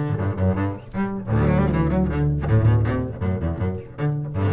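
Double bass played arco with a bow: a solo classical passage of sustained notes moving from one pitch to the next, with a short break about four seconds in before the next phrase begins.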